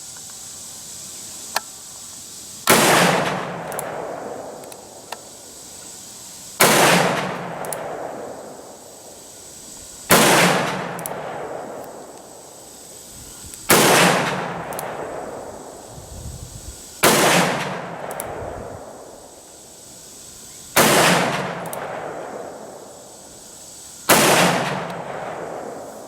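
Seven shots from a Ruger Single-Seven revolver in .327 Federal Magnum firing hot Federal 100-grain jacketed soft-point loads, one at a time about every three and a half seconds. Each is a sharp crack followed by a decaying echo.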